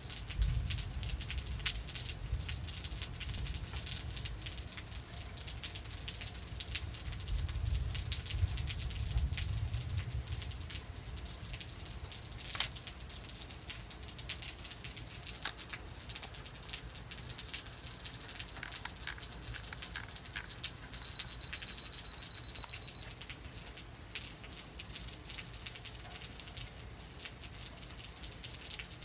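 Steady rain falling, with many close drips and splashes. Distant thunder rumbles low through the first third, swelling about eight seconds in.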